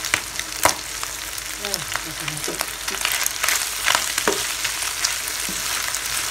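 Pork pieces and chopped chili sizzling in oil in a frying pan as they brown, while a spatula stirs them. A few sharp clicks of the spatula against the pan, the loudest about half a second in and more near the middle.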